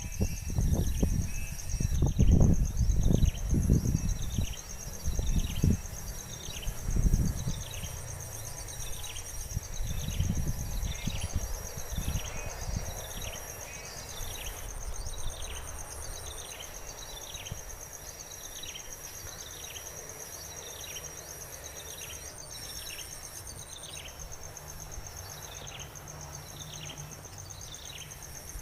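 Nature ambience: a steady high insect trill runs throughout, with a short falling chirp repeated about once a second. Low rustling and thumps in the first seven seconds.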